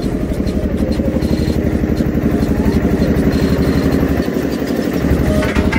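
Engine of a wooden river ferry boat running steadily under way, a rapid even beat of firing pulses.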